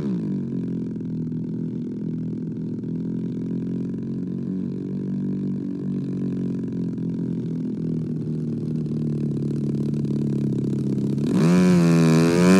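Radio-controlled model airplane's motor throttled back to a low, steady, slightly wavering drone as the plane comes in to land, then opened up about 11 seconds in, the pitch rising sharply and the sound getting louder.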